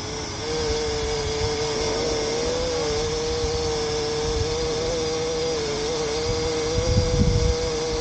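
Parrot Anafi quadcopter hovering, its propellers giving a steady buzzing hum that wavers slightly in pitch as the motors hold it against gusty wind. Wind buffets the microphone underneath, strongest about seven seconds in.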